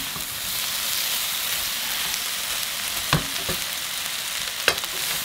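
Shredded chicken, green beans and onion sizzling with a steady hiss in a hot nonstick pan as they are tossed with a wooden spatula, with a few sharp knocks of the spatula against the pan, three of them in the second half.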